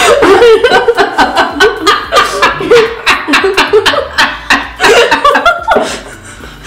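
Two women laughing together in quick, breathy bursts of giggles, easing off near the end.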